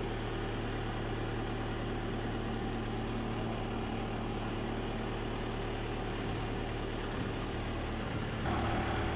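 Engine of a boatyard boat lift running steadily, a constant low hum. Near the end its note shifts and a higher whine comes in as it changes speed or load.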